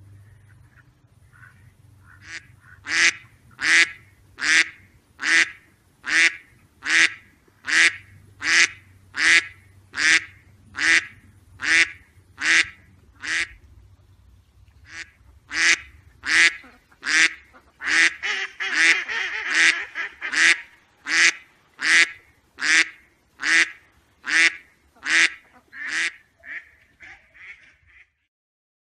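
Mallard quacking: two long runs of loud, evenly spaced quacks, a little over one a second, with a short break about halfway. Other calls crowd in briefly during the second run, and the last quacks fade out.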